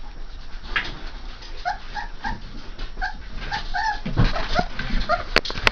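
Saint Bernard puppies, about three and a half weeks old, whimpering in a run of short high squeaks, about a dozen from around one and a half seconds in, over the scuffling of the litter, with a couple of sharp knocks near the end.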